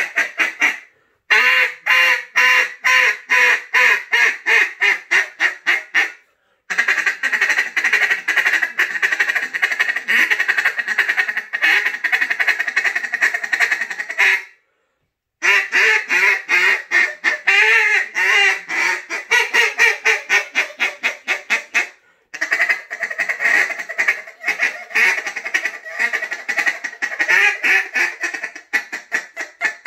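Land'nGear Machete LP cut-down style duck call blown in several long runs of rapid quacks, with short pauses between them. The calling goes from loud cut-down tones with back pressure down to low bottom-end notes.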